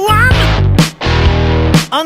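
Rock music with distorted guitar, a steady beat and a singing voice.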